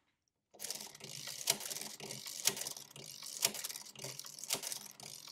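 Mercedes-Euklid Model 1 mechanical calculator being hand-cranked five times, its gears and proportional levers running with a steady clatter and a sharp click about once a second, one for each turn. Each turn adds 25 into the result register, multiplying 25 by 5 through repeated addition.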